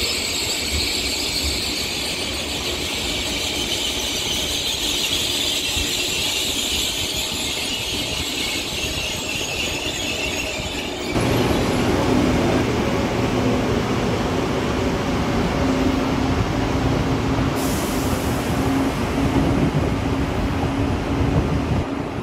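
A KTX high-speed train running along the platform, its wheels giving a high hiss and squeal. About halfway through the sound cuts to a KTX-Sancheon train moving, with a louder low rumble and a steady low hum.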